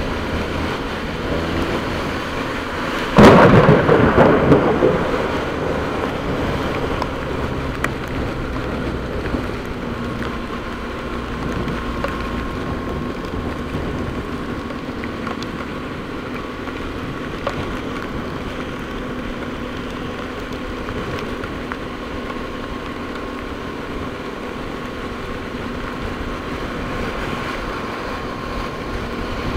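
A sudden loud thunderclap about three seconds in, rumbling away over the next few seconds. Under it, steady rain and wind noise with the steady hum of a motorcycle engine.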